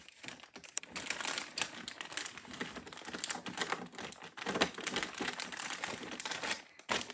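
Clear plastic zipper bag crinkling as markers are dropped in and handled, the markers clacking against each other in a quick, irregular run of clicks.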